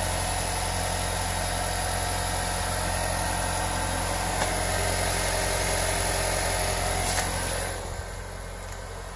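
A 2017 Honda Civic running with its front end turning, giving a steady mechanical hum with no rubbing or squeaking: the CV boot squeak has been cured by cleaning the boots and coating them with dry Teflon lube. The sound drops to a lower level near the end.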